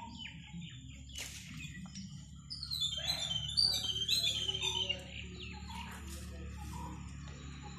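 Small birds chirping, with a quick run of short falling notes in the middle that is the loudest part. A couple of sharp clicks come before it, over a steady low hum.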